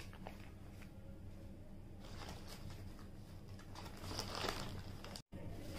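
Faint rustling and crinkling of a paper takeaway bag and food wrappers being handled, loudest about four seconds in, over a low steady hum. The sound drops out completely for a moment just after five seconds.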